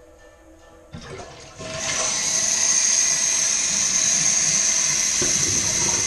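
Toilet with a newly replaced fill valve being flushed: a knock about a second in, then a loud, steady rush of water as the tank empties into the bowl, with a bright hiss over it.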